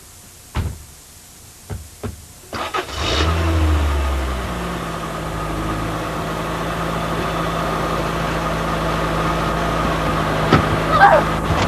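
A few knocks, then a vehicle engine starts about three seconds in, runs loud for a moment and settles into a steady idle.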